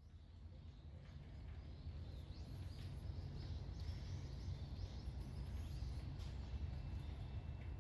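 Birds chirping and twittering in the surrounding trees, many short high calls, over a low steady rumble.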